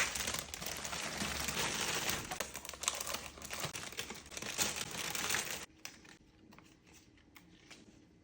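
Crinkling and rustling as a bunch of fresh flowers and its wrapping are handled. It is dense and crackly until about two-thirds of the way through, then cuts off abruptly, leaving faint scattered clicks.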